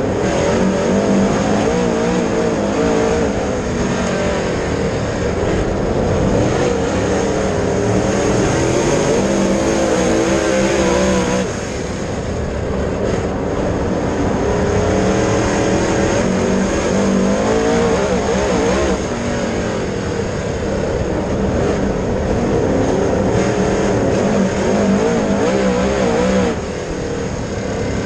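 Dirt late model race car's V8 engine running hard on track, its pitch wavering up and down as the throttle comes on and off. The engine drops off noticeably twice, about a third of the way in and near the end.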